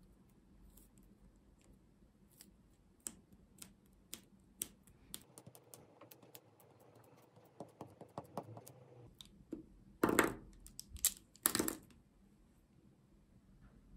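Kneaded eraser squeezed and worked in the fingers, then pressed and rubbed over a pencil sketch on paper: scattered small clicks and crackles, then two louder rubs against the paper, each about half a second, near the end.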